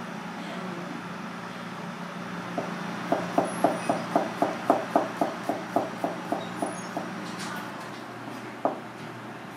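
Chef's knife slicing conch meat and knocking on a plastic cutting board: a quick, even run of about sixteen chops, some four a second, then one more chop near the end, over a steady low hum.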